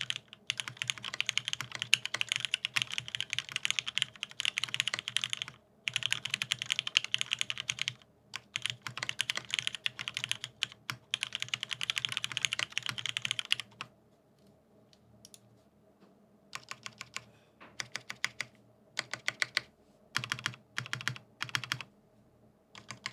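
Typing on a mechanical keyboard with lubed vintage Cherry MX Black linear switches in an aluminium plate, fitted with Cherry dye-sub keycaps. Fast continuous typing for about the first half, with brief pauses, then shorter separate bursts of keystrokes.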